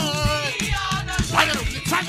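Live choir music: voices singing over a steady, quick drum beat and percussion.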